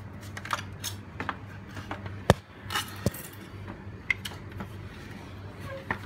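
Sharp clicks and knocks from handling the phone and a slatted wooden chair, the loudest a single sharp click about two seconds in. Under them runs the steady low hum of air-conditioner outdoor condenser units.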